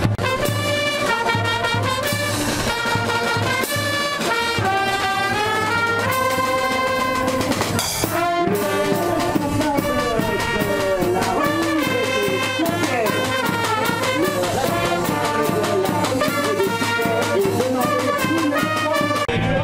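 Street brass band of trumpets with snare drum, bass drum and cymbals playing a lively tune, with a brief break about eight seconds in.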